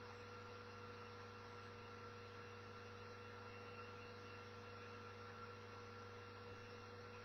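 Near silence: a steady low electrical hum with a couple of faint steady higher tones, and nothing else.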